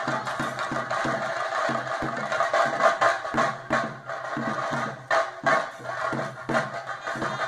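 Traditional theyyam accompaniment: drums and cymbals beating in dense, uneven strokes under a held, piping melodic tone, with louder accents about three and five seconds in.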